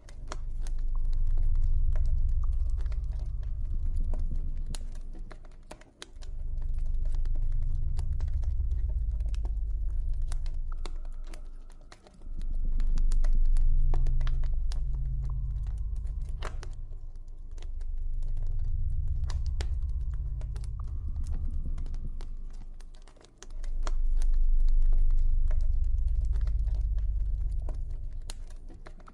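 Campfire crackling, with many small irregular pops and snaps, over a deep low ambient drone that swells and fades roughly every six seconds.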